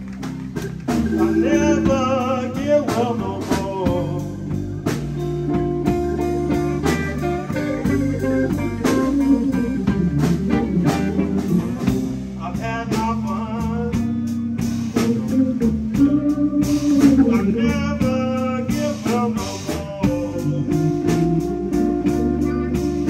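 Live electric blues band playing an instrumental passage: electric guitars, bass guitar and drum kit, with a harmonica played into a hand-held microphone wailing over them.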